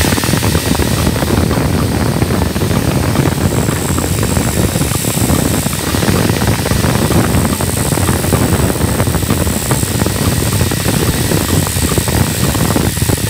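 Electric power-tool motor running steadily, a loud continuous mechanical drone with no pauses.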